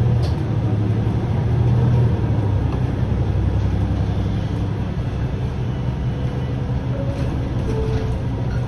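MAN Lion's City A21 city bus running under way, heard from the cab: a steady low engine and drivetrain hum, a little louder about two seconds in.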